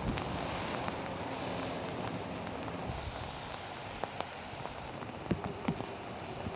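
Wind on the camera microphone: a steady outdoor rush with low buffeting. A few sharp ticks come in the second half.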